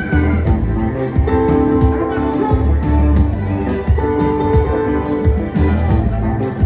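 Live band music: keyboard playing sustained chords over bass and a regular drum beat.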